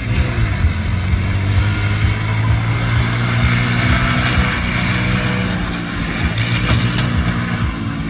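Engine of a small homemade tractor running steadily as it drives past close by, a low, even engine note.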